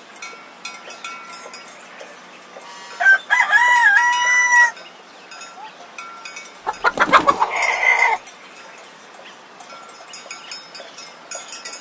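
Roosters crowing twice: a clear, drawn-out cock-a-doodle-doo about three seconds in, then a rougher, raspier crow around seven seconds in.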